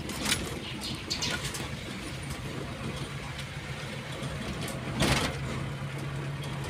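Car driving on a rough dirt road heard from inside the cabin: a steady engine hum over tyre and road noise, with small rattles and one louder thump about five seconds in.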